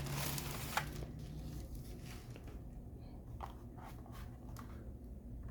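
Plastic wrapping rustling and crinkling as a keyboard is slid out of it, busiest in the first second, with a sharp tick just under a second in, then only a few soft rustles and light ticks.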